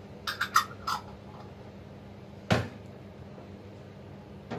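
Kitchen containers and utensils handled on a counter: a quick run of four light clinks, then one solid knock about two and a half seconds in, and a single click near the end.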